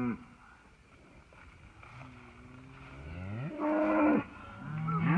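Cows mooing: a long low moo that swells from about two seconds in and breaks off at about four seconds, then a second moo starting near the end.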